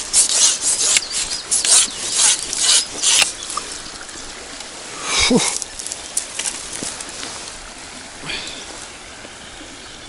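Rustling and scraping of dry grass and clothing as a small hooked fish is pulled in and landed on the bank, loud and irregular for the first three seconds, then sparser. About five seconds in there is a brief falling tone, and near the end only a faint steady hiss, like running stream water.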